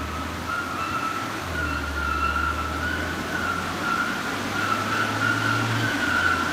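BMW 328xi's 3.0-litre straight-six running on a chassis dyno as the car builds speed on the rollers, the engine note stepping up and down in pitch a few times. A high wavering whine climbs slowly in pitch over it, and the sound grows louder.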